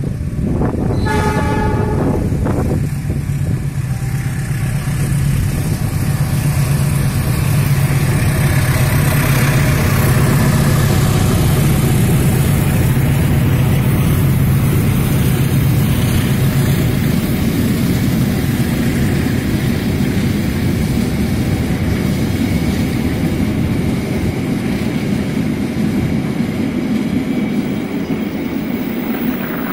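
A diesel freight train approaching and passing: the locomotive sounds one short horn blast about a second in, then its engine drone swells as it goes by. A long string of oil tank wagons follows, rumbling and clattering over the rails.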